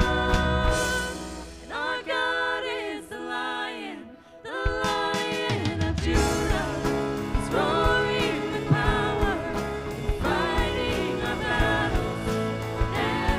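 Worship song: singing voices over a band with a steady beat. About two seconds in the band thins out, leaving mostly the voices, and the full band comes back in about four and a half seconds in.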